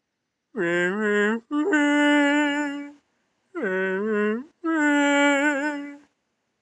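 A voice singing four long, held phrases with vibrato, with short dead-silent gaps between them.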